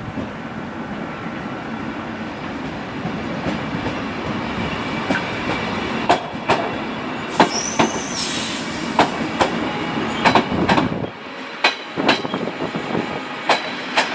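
Passenger train hauled by an electric locomotive rolling past close by. Its wheels clack irregularly over rail joints and points, with a short high-pitched wheel squeal about seven seconds in. The low rumble drops away suddenly about eleven seconds in.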